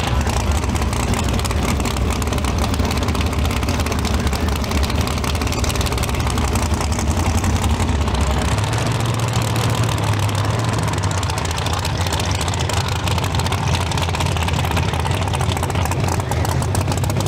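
Big-tire outlaw drag race car engines running loud, a steady deep rumble whose pitch steps up about halfway through.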